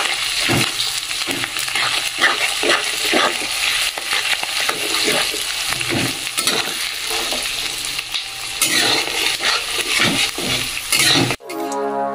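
Sliced onions sizzling in hot mustard oil and ghee in a metal kadai on a high gas flame, with a metal spatula scraping and knocking the pan as they are stirred. Music starts abruptly near the end.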